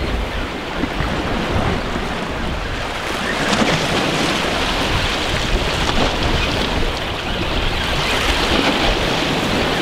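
Small waves washing against a rocky shoreline, with wind blowing across the microphone: a steady rushing noise.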